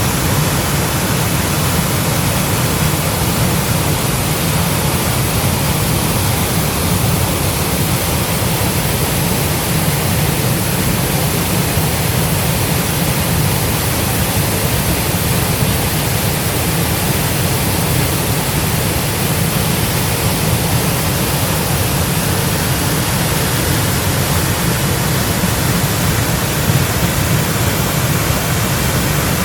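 Waterfall of about 20 metres pouring steadily: a loud, even, unchanging rush of falling water with a strong low rumble.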